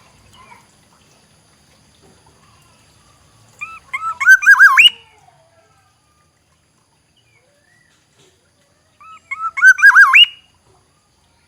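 Black-naped oriole singing: two short phrases of loud, fluty, looping whistles, about five seconds apart.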